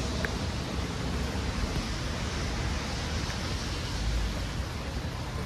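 Steady hiss of rain on a wet street, with wind rumbling on the microphone.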